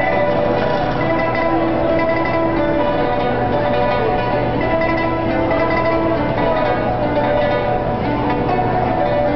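Yangqin (Chinese hammered dulcimer) and guzheng (Chinese plucked zither) playing a traditional Chinese piece together, a continuous melody of ringing struck and plucked string notes.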